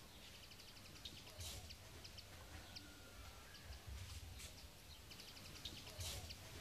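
Faint outdoor background hiss with small birds chirping here and there.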